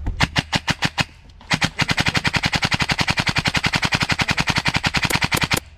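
Airsoft guns firing full auto at close range: a short burst of about seven sharp cracks, a brief pause, then a long run of rapid cracks at about fourteen a second for some four seconds that stops abruptly.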